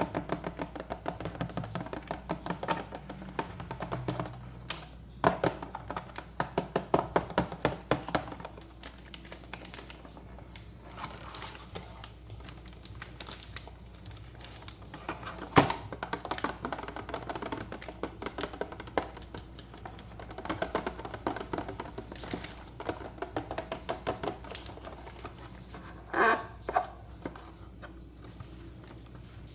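Plastic toy pieces being handled, making many small clicks and taps with a few louder knocks, over music.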